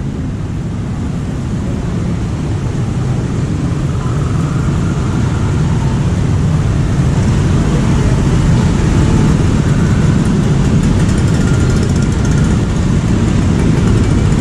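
Road traffic, mostly motorcycles and cars, driving past with engines running, growing gradually louder as the traffic thickens.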